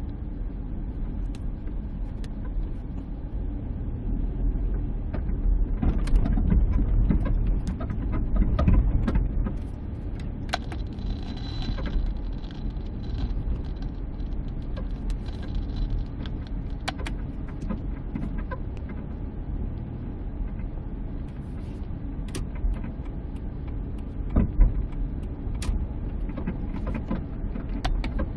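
Low road-and-suspension rumble from a minivan on the move, heard through the speaker of a Steelman Wireless ChassisEar receiver that picks up transmitters clamped on the front suspension. Scattered sharp clicks and knocks come through, with a louder thump near the end.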